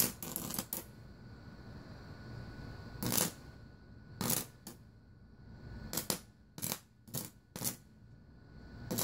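Homemade high-voltage bug zapper grid arcing in short, sharp crackling snaps, about nine of them at irregular intervals, several bunched together near the start and again in the second half.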